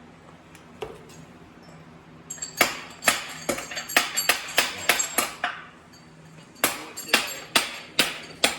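Hammer blows on a steel part of a tractor transmission, two runs of quick strikes about three a second, each with a metallic ring, with a short pause between the runs.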